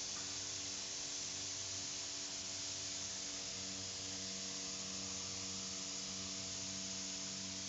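A steady electrical hum under an even hiss, with no rhythm of machine strokes.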